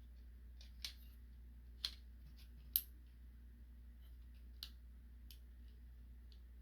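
Hard plastic Transformers figure parts clicking and tapping as they are handled and worked at: a handful of light, separate clicks, the sharpest about three seconds in, over a faint steady low hum.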